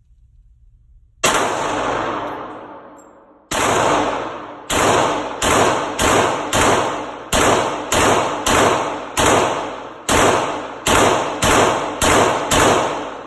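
A firearm fired at an indoor shooting range, about sixteen shots. One shot comes about a second in and another a couple of seconds later, then a rapid string follows at roughly two shots a second. Each report echoes and dies away.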